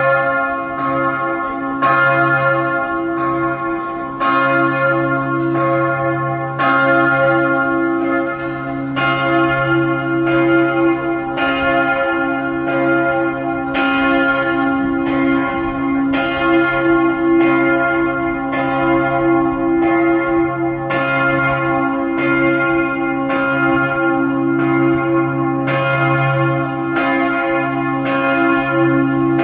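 Church bells ringing in a continuous peal, several bells of different pitch struck again and again every second or two, their tones overlapping and ringing on between strokes.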